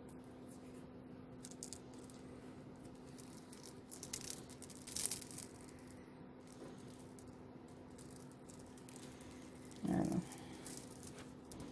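Small jewelry pieces being handled and picked clean of hair: scattered soft clinks, rattles and rustles, loudest about five seconds in, over a steady low hum. A brief dull knock about ten seconds in.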